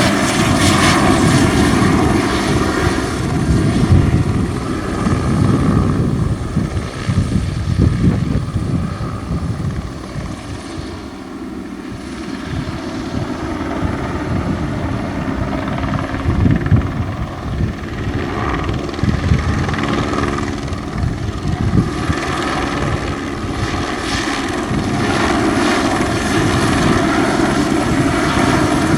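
Eurocopter AS350B single-turbine helicopter flying spray passes: its main rotor and turbine engine run steadily with a thin high turbine whine. The sound fades somewhat in the middle and grows louder again near the end as the helicopter comes back closer.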